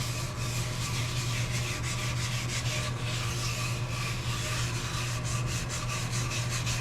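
Brass wire brush scrubbing a cast-iron lathe taper attachment slide wet with automatic transmission fluid and acetone, in quick repeated back-and-forth strokes. A steady low hum runs underneath.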